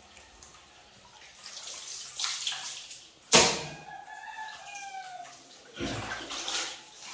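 Water poured from a plastic dipper splashing over a puppy and onto a tiled floor in two bursts, with a single sharp, loud knock between them. Just after the knock comes a brief, thin, wavering whine.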